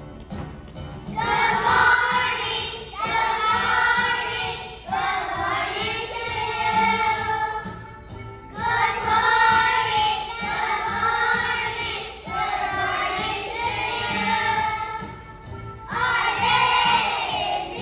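A group of young children singing a good-morning song together over backing music, in sung lines with short breaks about eight and sixteen seconds in.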